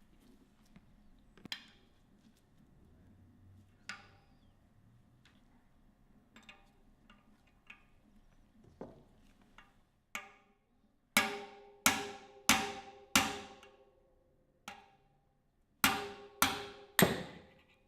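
Hammer blows on a bearing-removal tool, driving a bearing out of a bicycle rear hub shell. Light taps and clicks for about ten seconds, then sharp ringing metal strikes: four about two-thirds of a second apart, one lighter tap, then three more.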